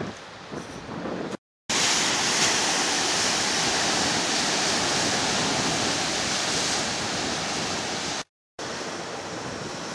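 Surf breaking on a rocky shore, a steady loud rush with wind on the microphone. It is quieter and mostly wind rumble at first, then cuts out for a moment. The rush comes back louder, cuts out again near the end, and returns more softly.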